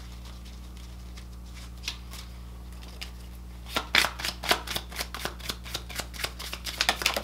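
Deck of tarot cards being shuffled by hand, overhand, as a quick run of crisp card flicks and slaps that starts about halfway through, after a few seconds of near-quiet with a low steady hum.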